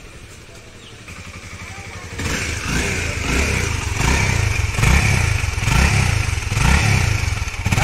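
Honda CBR250R's single-cylinder engine idling through its exhaust, then from about two seconds in revved loud in a string of repeated throttle blips, rising and falling about once a second.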